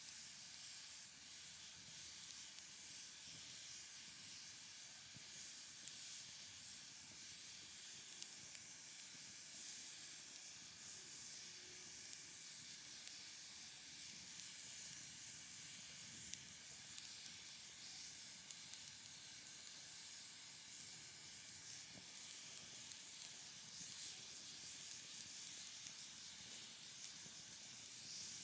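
Wood fire burning: a steady soft hiss with scattered, irregular sharp crackles and pops.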